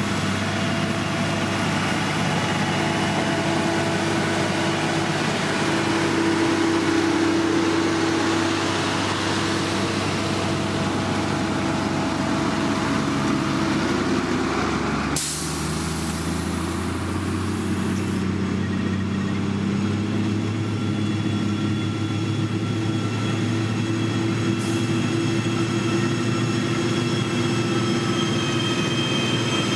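Heavy diesel engines of road-building machinery, such as a motor grader or road roller, running steadily. The sound changes abruptly about halfway through and then carries on steady.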